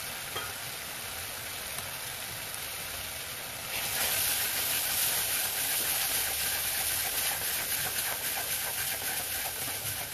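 Onion-tomato masala sizzling in a hot steel kadai. About four seconds in, water hits the hot masala and the sizzle jumps to a loud, steady hiss while a spatula stirs it.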